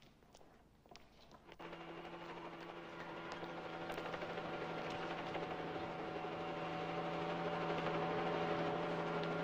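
Faint footsteps echoing in a large hard-walled hall, then a steady droning hum of several held tones that starts abruptly and slowly grows louder.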